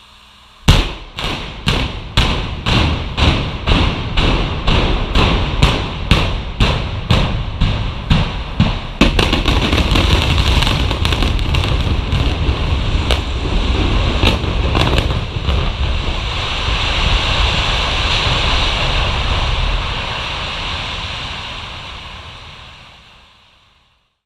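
Explosive demolition charges firing in a rapid sequence of sharp bangs, about two a second. They give way to the long rumble of a 20-story reinforced concrete building collapsing, which dies away near the end.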